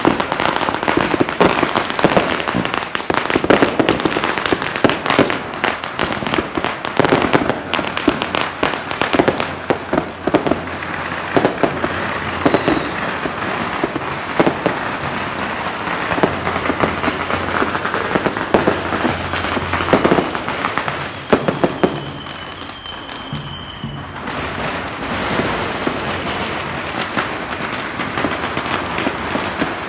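Fireworks and firecrackers going off nonstop in a dense crackle of bangs. The barrage eases briefly about 22 seconds in, then builds again.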